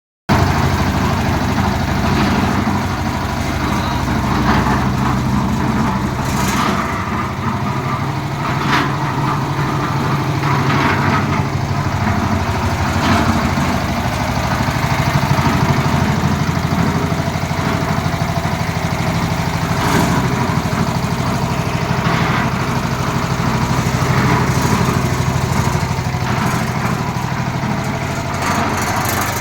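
Concrete mixer machine's engine running steadily, with short clatters recurring every couple of seconds.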